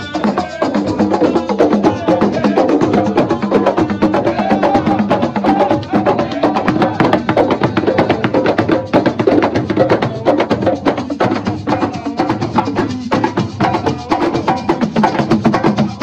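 Live assiko hand drumming: square wooden frame drums and other hand drums struck in a fast, dense, unbroken rhythm.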